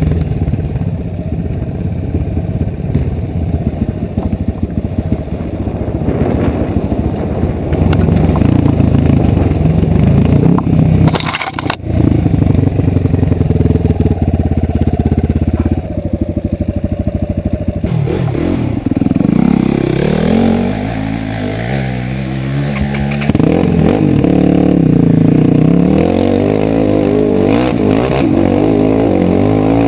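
Dirt bike engine running under way, its revs rising and falling with the throttle. There is one short break in the sound about twelve seconds in.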